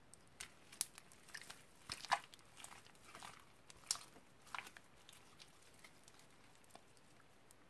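Thick slime with beads and plastic flakes mixed in, squeezed and stretched by hand: a run of wet clicks, pops and squelches as air pockets burst. The pops come thickest in the first four to five seconds, then the handling goes faint.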